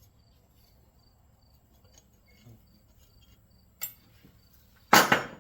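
A cricket chirping steadily, about three short high chirps a second, under quiet workshop room tone; a small click about four seconds in, then a loud metallic clatter near the end as metal scrap parts or a tool are set down on the bench.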